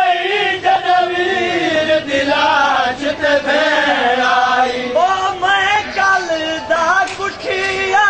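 Male voices chanting a Punjabi noha, a Shia mourning lament, in a continuous wavering melody.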